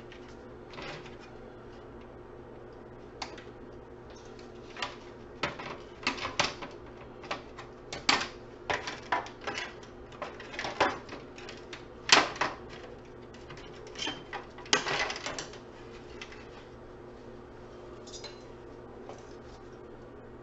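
Irregular clicks and clacks of a hand tool working on a plastic electrical housing and its metal parts as salvaged electronics are taken apart for scrap, with a steady low hum underneath.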